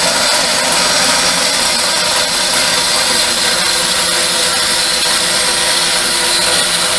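Converted 12-inch Craftsman vertical band saw cutting a piece of steel bed-frame rail: a loud, steady noise of the blade working through the metal.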